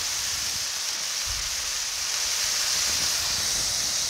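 Two smashed beef burger patties sizzling steadily on the hot steel top of a 28-inch Blackstone Pro Series griddle, already crusted on the underside.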